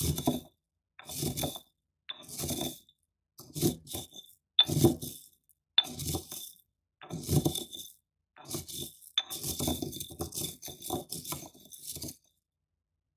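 Corn kernels being crushed in a stone bowl: about seven separate crunching, scraping strokes roughly once a second, each with a faint high ring, then a longer run of quick grinding strokes about two thirds of the way in.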